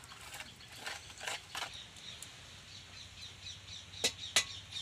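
A metal spoon knocking a few times in a steel bowl as gram-flour batter is beaten, stopping after about two seconds. Then small birds chirp in the background, and two sharp clicks come about four seconds in.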